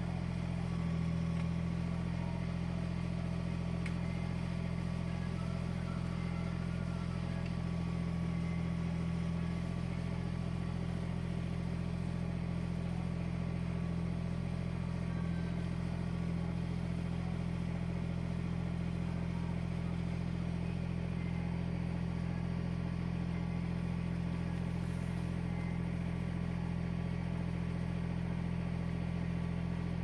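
Kubota BX subcompact tractor's three-cylinder diesel engine running steadily at low RPM, powering the backhoe's hydraulics.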